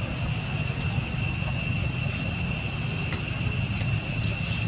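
A steady, high insect drone with two unchanging pitches, over a low, steady rumble.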